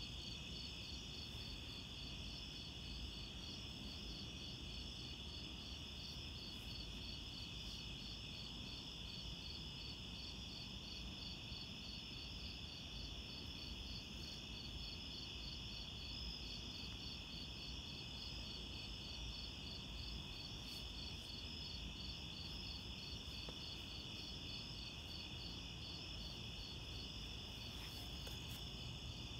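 Evening chorus of crickets and other insects: a steady high trill with a fast, evenly pulsing chirp above it, over a low steady rumble.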